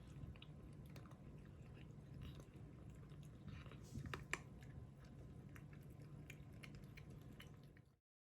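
A cat chewing its food: many faint, short clicks over a steady low hum, with a few louder ones about halfway. The sound cuts off suddenly near the end.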